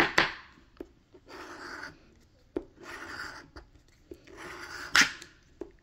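A coin scraping the coating off a scratch-off lottery ticket in short strokes of about half a second, with a few sharp clicks as the coin knocks the card. The loudest click comes about five seconds in.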